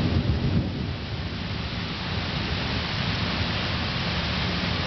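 Heavy thunderstorm rain pouring steadily, with a low rumble of thunder that is loudest in the first second and keeps rumbling beneath the rain.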